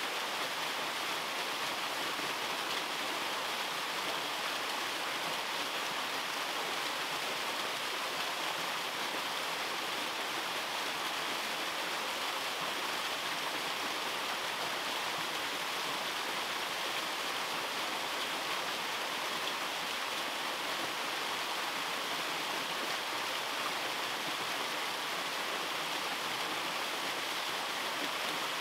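Small waterfall pouring over rock into a pool: a steady, even rush of falling and splashing water.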